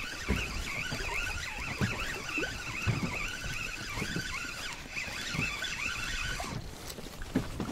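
Spinning reel being cranked to bring in a hooked perch, a wavering whine that stops near the end, with several dull knocks against the inflatable boat.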